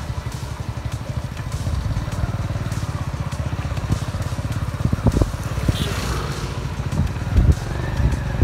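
Motorcycle engine running steadily while riding over a rough, rutted dirt road, with several thumps from bumps in the second half.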